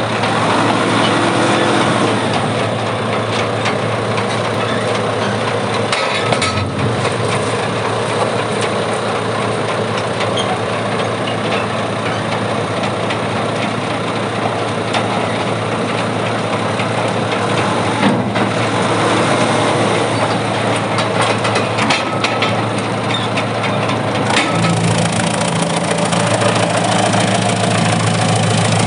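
YMPJ2113 wood chipper running steadily: a constant low hum under dense machine noise, with a few brief knocks.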